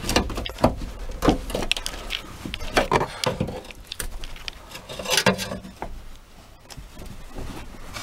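Irregular knocks, clicks and clanks of metal as the seized tailgate latch of a Toyota 4Runner is worked free by hand, with no grinder running.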